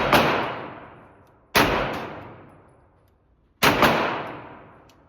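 Pistol shots: four in all, one about a second and a half after the first, then two in quick succession near the middle. Each shot is followed by a long echoing decay.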